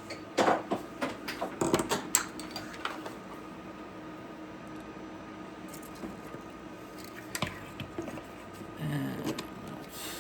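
Small plastic printer parts and screws being handled and fitted: a quick flurry of clicks and clatter in the first few seconds, then a few scattered clicks.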